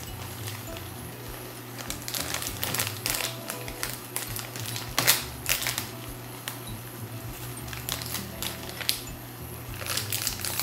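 Plastic instant-ramen packet crinkling as it is handled and a seasoning sachet is taken out, with one sharper crackle about five seconds in.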